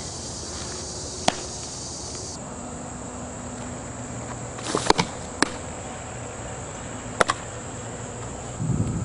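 Sharp pops of a softball smacking into leather gloves: one about a second in, a cluster of three around the middle and a pair near the end. Under them runs a steady high insect drone.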